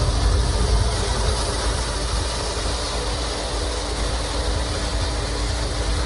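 Pet blow dryer running: a steady rush of air over an even motor hum.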